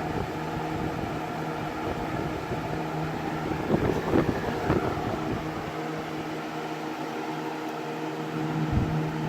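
20-inch Galaxy model 3713 plastic-bladed box fan running on high: a steady motor hum under the rush of air, with a few low rumbles of air around the middle.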